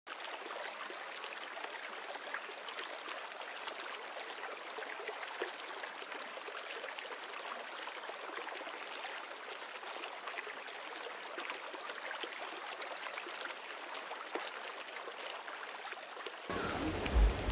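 Flowing river water, a steady even rush without low rumble. Near the end a deeper rumble and a few knocks join in.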